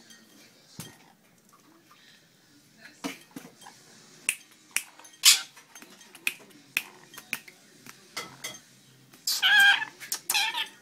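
Pet parrot bathing in a bowl of water, dipping its head and flicking water in short, scattered splashes. Near the end it gives two bursts of harsh, wavering calls.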